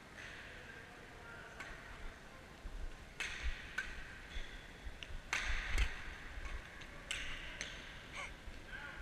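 Badminton rally: sharp racket-on-shuttlecock hits, several in the second half, some in quick pairs, with short squeaks of court shoes on the hall floor.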